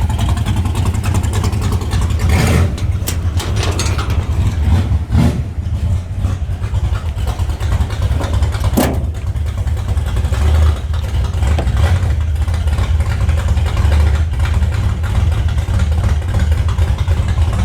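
Car engine running at idle through a loud exhaust: a deep, uneven rumble that stays steady throughout, with a few brief sharper sounds.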